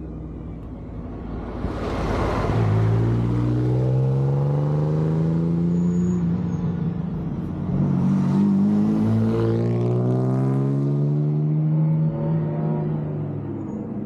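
Classic saloon car's engine accelerating hard through a bend, its pitch climbing, dropping at an upshift about seven and a half seconds in, then climbing again before backing off near the end.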